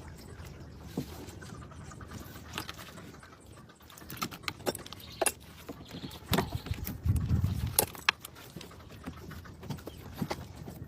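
A cow's hooves shifting and stepping on a hard floor: irregular knocks and clicks, thickest in the second half, with a brief low rumble around seven seconds in.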